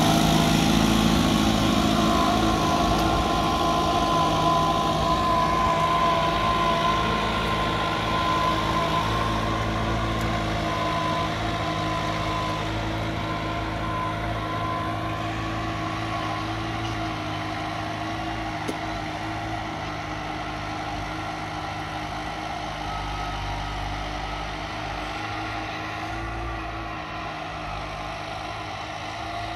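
New Holland TT4.75 tractor's diesel engine running steadily under load while pulling a tine cultivator through the soil. The drone fades gradually as the tractor moves away.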